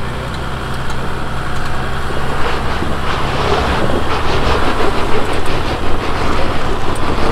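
A 2020 Jeep Wrangler's 3.0-litre EcoDiesel V6 turbodiesel crawls over a rocky ledge. It runs with a steady low drone, then grows louder and rougher about two and a half seconds in as it works harder on the climb.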